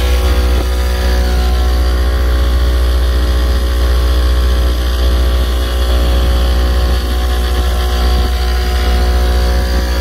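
A 40-horsepower outboard motor running at a steady high speed, its engine note holding pitch throughout, over the rush of the hull's wake and spray.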